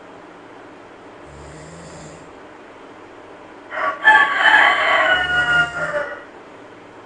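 A loud animal call, about two and a half seconds long, starts about four seconds in, its pitch dropping near the end. It sounds over a monkey's soft, regular snoring.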